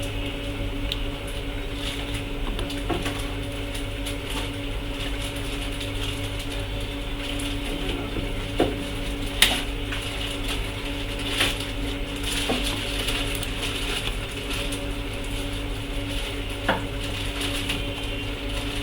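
A steady machine hum with a hiss, from bench equipment running, broken by a few short sharp clicks and taps, the loudest about halfway through.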